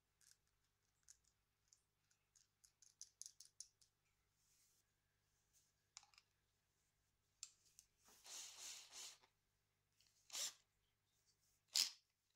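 Near silence with faint handling noises: light metallic clicks of pliers and a small bolt mandrel being worked by hand, a quick run of clicks about three seconds in, then a few soft rustles and scrapes near the end.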